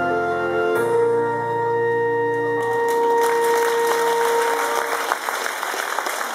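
The song's accompaniment holds its final chord on a keyboard, with organ-like sustained tones, and fades out. About three seconds in, audience applause starts and carries on.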